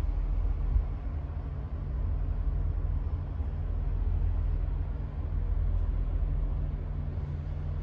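Diesel train engine running steadily: a low, even rumble.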